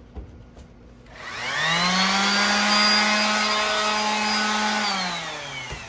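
Corded DeWalt electric sander switched on and run unloaded, with only its bare hook-and-loop backing pad and no sanding disc: the motor spins up with a rising whine about a second in, runs steadily for about three seconds, then winds down near the end. A single click comes just after the start.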